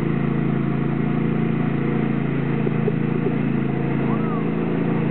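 Craftsman riding lawn mower's engine running with a steady hum, its note shifting slightly about four seconds in.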